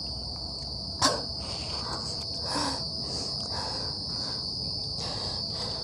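Steady high-pitched chirring of night insects, with a short sharp noise about a second in.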